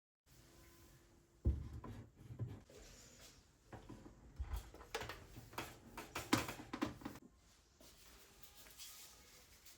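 Objects being handled in a small room: an irregular string of light knocks, taps and clatter, with dull thumps about 1.5 and 4.5 seconds in, busiest between about five and seven seconds in.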